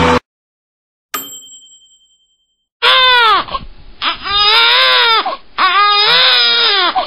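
A single bell-like ding that rings and fades, then a man's drawn-out anguished screams of "No" three times, each rising and then falling in pitch.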